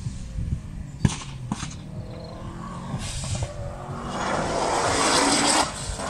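A car engine running at a distance as a car is driven around a gymkhana course, with faint wavering engine tones. Two sharp knocks come about a second in, and a rising rush of noise builds over the last two seconds.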